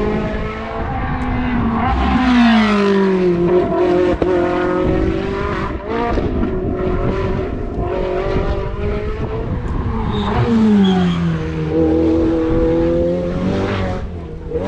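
Hill-climb race car engine running hard under load. Its pitch drops sharply twice, about two seconds in and again about ten seconds in, and climbs in between.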